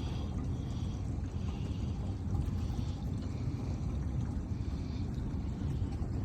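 Water sloshing against the hull of a drifting boat, over a steady low rumble.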